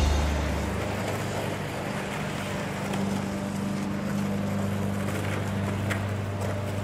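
Outdoor street ambience: steady wind noise on the microphone over a steady low hum, with a couple of faint ticks. The tail of rock music fades out in the first second.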